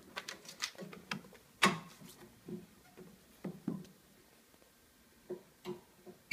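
Irregular sharp clicks and knocks from a paper stack being handled on the metal table of a Nagel Multinak FS stapler and from its stapling heads being handled. The loudest knock comes about one and a half seconds in, with a few softer thuds near the end.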